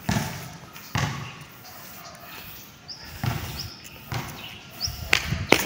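Footsteps of a person walking on a concrete court: dull thuds about once a second, with two louder steps close together near the end.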